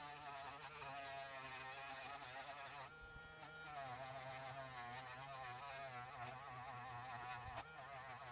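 Small high-speed rotary tool buzzing as it polishes the bare metal body of a diecast toy car. Its whine wavers up and down in pitch as the load on the bit changes, over a low steady hum.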